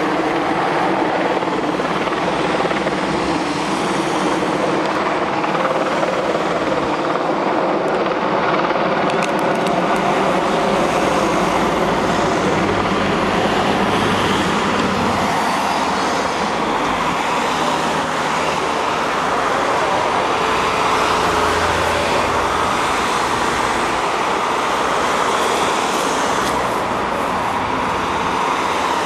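Team cars of a cycle-race convoy passing one after another, their engines and tyres making a steady traffic noise.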